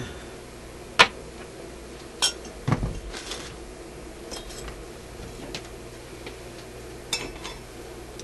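Scattered sharp metallic clinks and knocks of hand tools and the steel radio chassis being handled on a workbench, about half a dozen in all, the loudest about a second in.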